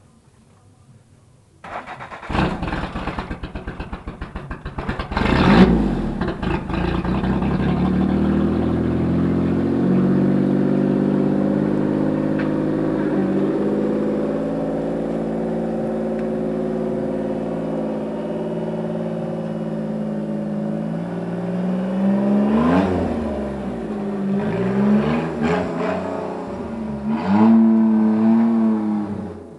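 Engine of a homemade tractor being started: a few seconds of cranking, then it catches with a burst of revs about five seconds in. It runs steadily after that, revving up and down a few times near the end as the tractor drives off.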